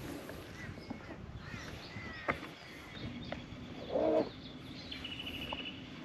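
Birds chirping and calling, with a louder, short harsh call about four seconds in and a few faint clicks.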